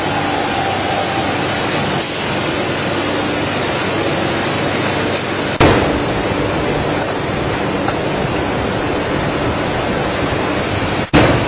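Steady, loud machine noise with no clear rhythm. About halfway through it changes abruptly and gets louder in the low end. Near the end it drops out for a moment and comes back with a sharp click.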